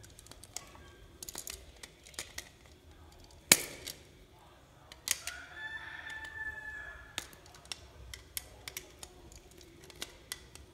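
A rooster crowing once in the background for about two seconds, starting about five seconds in, over scattered sharp clicks and taps of a screwdriver and metal socket parts being handled at a wall outlet; the loudest click comes about three and a half seconds in.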